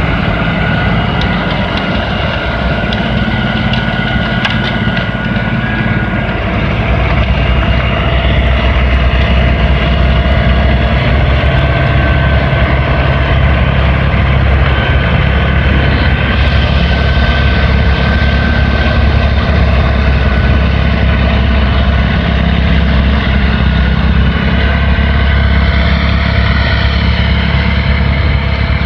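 LS XR4155H 55 hp diesel tractor engine running steadily with a whine over it; the low engine rumble grows louder about seven seconds in.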